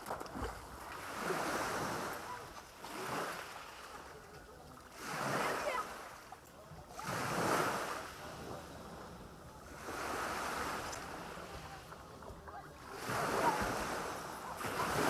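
Sea waves breaking and washing up the shore, the surf swelling and falling back every two to three seconds.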